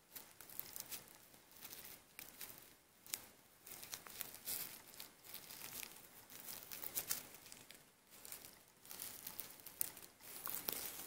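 Faint, irregular rustling and scratching of fabric as fingers rub, pinch and bunch the thin white mesh lining of an IKEA plush dragon hand puppet, with a few sharper scratches.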